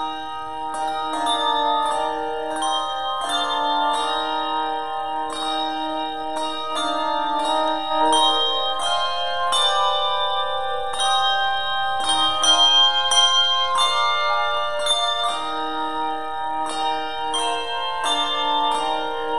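Handbell choir playing a piece together: many brass handbells rung in turn, their notes overlapping and ringing on in several parts.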